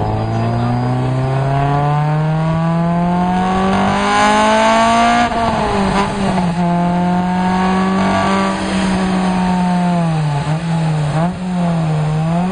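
Honda Integra Type R's four-cylinder engine through a Spoon exhaust, running under load on a chassis dynamometer. The revs climb steadily for about five seconds, drop suddenly, then hold high and steady, with two brief dips near the end.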